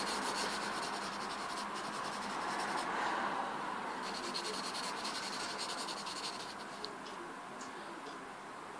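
Graphite pencil scratching on paper in quick back-and-forth strokes, shading in a drawing.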